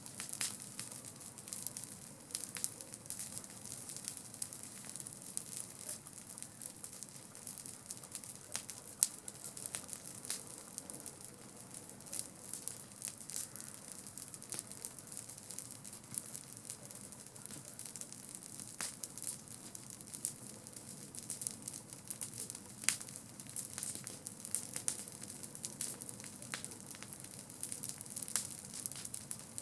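Wood campfire burning, crackling with many irregular sharp pops over a steady hiss; one pop about nine seconds in stands out as the loudest.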